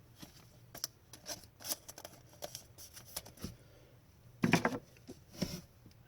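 Hockey trading cards being handled and flipped through one by one, giving quick soft ticks and swishes of card sliding on card, with a louder rustle about four and a half seconds in.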